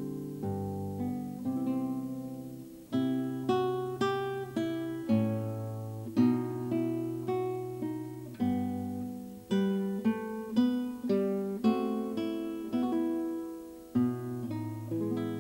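Background music: a guitar playing, picking notes and chords one after another, each ringing out and fading.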